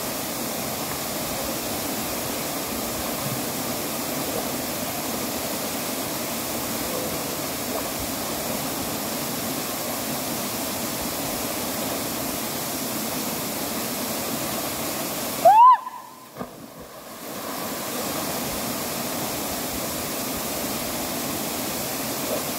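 Waterfall pouring into its plunge pool: a steady rushing noise. About fifteen seconds in, a short loud rising tone cuts in, and the water noise dips for about two seconds before returning.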